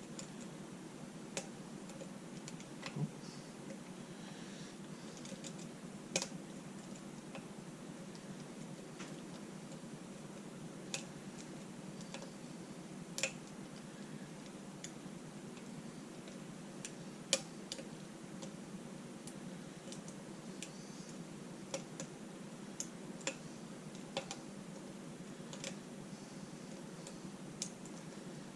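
Scattered small clicks and ticks at irregular intervals as a lock pick and tension wrench work the pins of a six-pin pin-tumbler lock held in a vise, single-pin picking, over a steady low hum.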